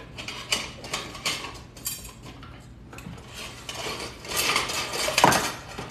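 Metal kitchen utensils clattering and rattling against each other as they are rummaged through in a utensil drawer and holder, with a louder clank about five seconds in.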